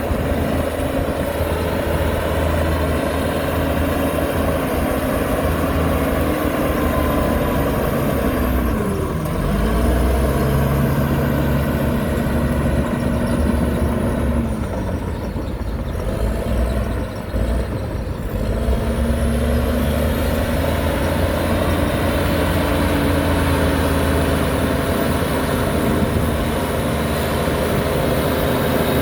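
Heavy diesel engine of earthmoving machinery running steadily. Its pitch dips and climbs back twice, about a third of the way in and again just past the middle.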